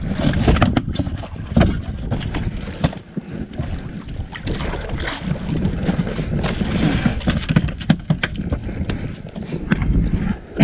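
Wind buffeting the microphone on a small outrigger fishing boat at sea, with irregular sharp knocks and clicks.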